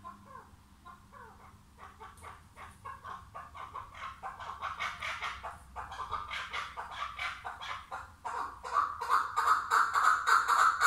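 Chukar partridge calling: a string of short clucking notes that starts faint and slow and builds steadily in speed and loudness. From about eight seconds in it becomes a rapid, loud run of calls.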